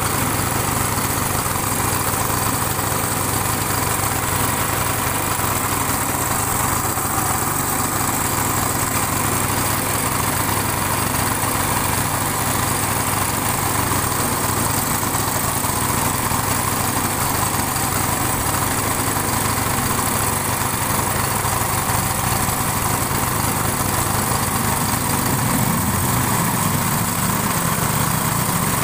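Small Honda engine of a wooden river boat running steadily under way. Its low note shifts briefly near the end.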